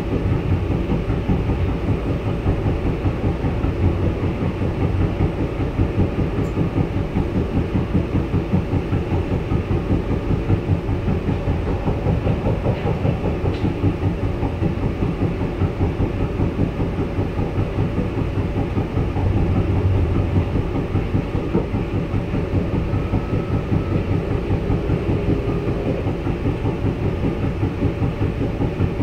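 Hamburg U-Bahn DT4 metro train running at steady speed, heard from inside the car: a continuous low rumble of wheels on rail with a fast, even pulsing.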